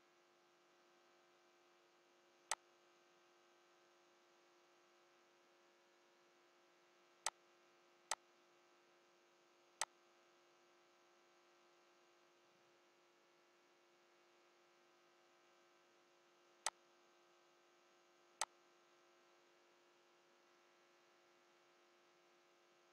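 Six isolated sharp clicks of a computer mouse, unevenly spaced, over a faint steady electrical hum.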